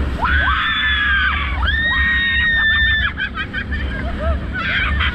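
Banana boat riders screaming: two long, high screams of about a second each in the first three seconds, then shorter cries, over steady rushing wind and water.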